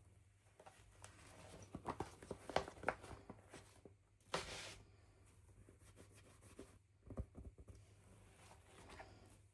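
Hands handling and opening toy packaging: scattered small clicks and crinkles, with a short rasping tear about four seconds in and a few more clicks near seven seconds.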